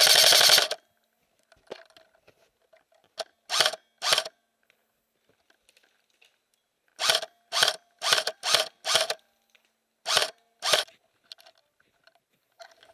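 A rapid full-auto burst from an electric airsoft gun, cutting off about a second in. Then a run of short crunches, about two a second, from boots walking on snow.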